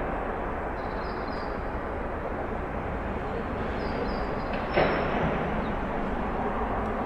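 Backyard ambience: a steady wash of distant background noise, with two pairs of short high chirps and a single sharp knock about five seconds in.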